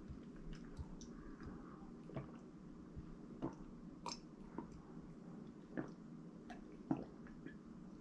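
A person drinking from a glass: faint sips and swallows with a few small scattered clicks, over a low steady room hum.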